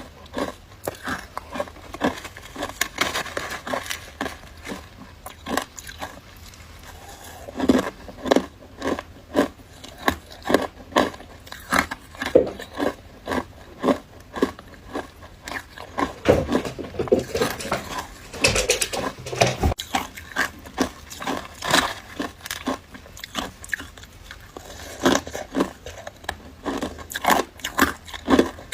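Close-up crunching and chewing of matcha shaved ice: a continuous run of irregular crisp crunches and crackles, several a second.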